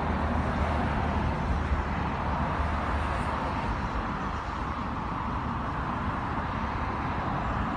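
Steady background rumble of road traffic and vehicles, a low hum with an even hiss above it and no distinct events.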